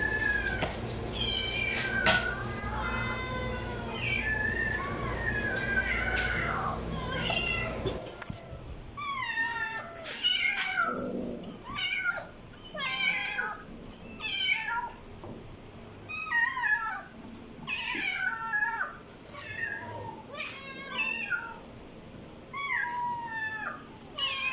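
Cats meowing over and over. For the first part several meows overlap over a low hum; about eight seconds in the recording changes to a steady run of short, separate meows roughly one a second.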